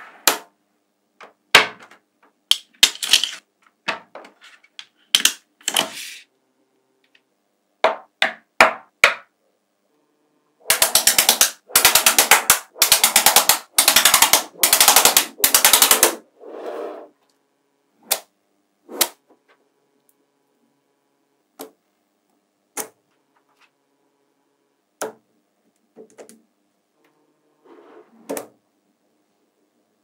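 Small magnetic balls clicking and snapping together as strips of them are joined and set down. Single sharp clicks and short clusters come throughout, with a dense run of rapid clicking from about eleven to sixteen seconds in.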